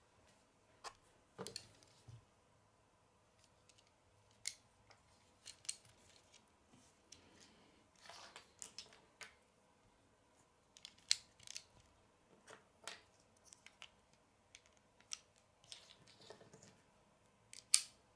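Plastic Lego pieces being handled and pressed onto a model car: irregular sharp clicks and taps of brick on brick, the loudest near the end.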